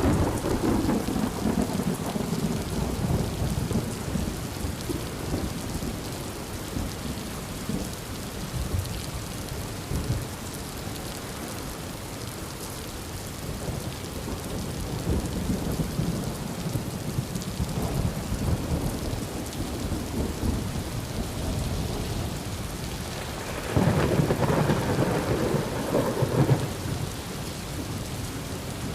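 Heavy rain falling steadily through a thunderstorm, with rolling thunder: a rumble fading away over the first few seconds, and a louder peal of thunder about 24 seconds in that rumbles on for about three seconds.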